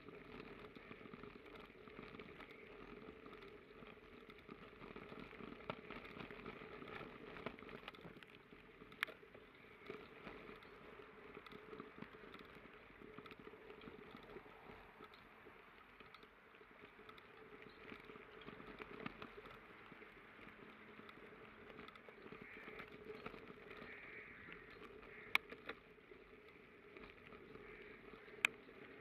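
Faint bicycle tyres rolling over a fresh crushed-stone path with a steady gritty noise, and a few sharp clicks or knocks from the bike, the loudest two near the end.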